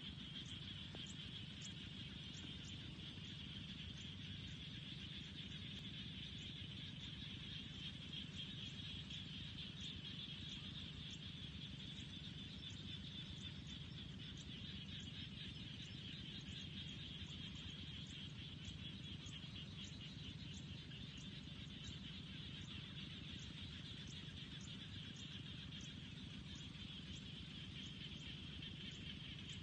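Faint, steady chorus of insects, with a short high chirp repeating a bit more than once a second over a low steady rumble.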